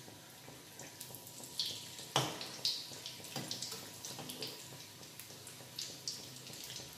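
Breaded beef cutlets deep-frying in hot oil, a steady bubbling hiss full of small crackles, with clicks of a perforated steel skimmer against the wok as the cutlets are turned, the sharpest about two seconds in. The oil is foaming up around the egg coating.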